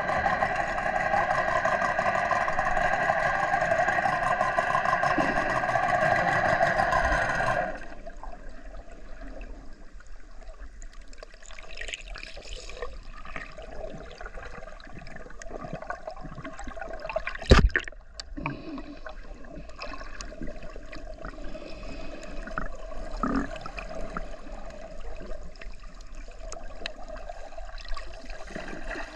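Heard underwater: a boat motor drones steadily through the water, then cuts off suddenly about seven seconds in. It leaves a quieter underwater wash with soft crackles and one sharp knock a little past the middle.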